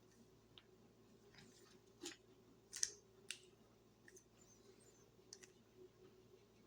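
Rubik's cube layers being turned quickly by hand during an algorithm: scattered sharp plastic clicks and snaps, the loudest a little under three seconds in, with quiet between.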